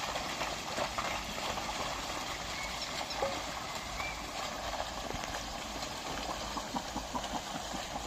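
A pair of bullocks pulling a plough through a flooded, muddy field: steady sloshing and churning of water and mud, with a few short, faint calls scattered through it.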